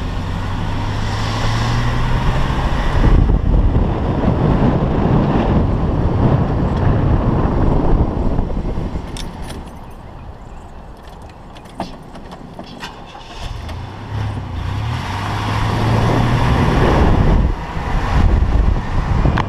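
Vehicle engine running with tyre and wind noise on a gravel road. It drops off for a few seconds in the middle, where a few sharp clicks are heard, then picks up again with a steady low hum.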